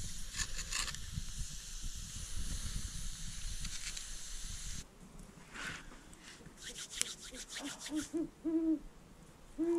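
Dry sticks rustle and scrape as they are laid on a small campfire, followed by a few sharp crackles. In the last two seconds an owl hoots: a quick run of short hoots, then longer ones, louder than the fire sounds.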